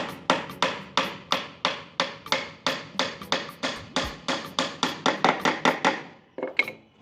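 Repeated hammer blows, about three a second in a steady rhythm, stopping about six seconds in.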